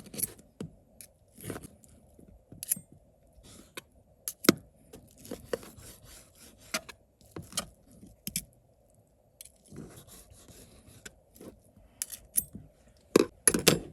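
Knife and fork clicking and scraping against a plate as cooked steak is cut into pieces, in irregular short strokes, with a few louder clicks near the end.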